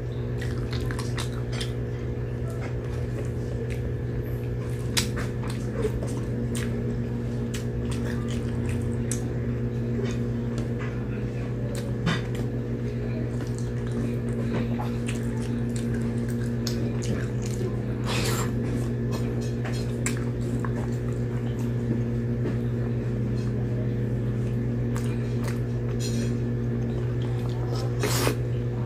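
Close-up eating sounds: chewing and sucking soft, saucy pork and rice off the fingers, with many short wet clicks and lip smacks, over a steady low hum.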